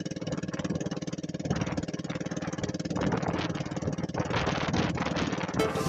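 A small engine running steadily at low revs with a fast, even pulse. Music cuts in near the end.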